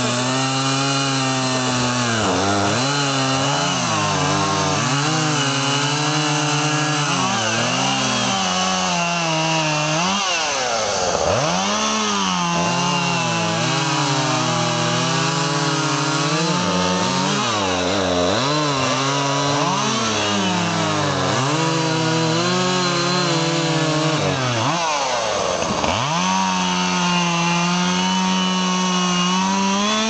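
Two gasoline chainsaws running at once while cutting through fallen tree trunks, each engine's pitch rising and falling repeatedly as it revs and loads up in the wood.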